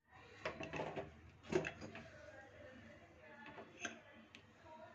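Faint, scattered clinks and knocks of kitchen utensils being handled, about five separate taps, the loudest a little over a second and a half in.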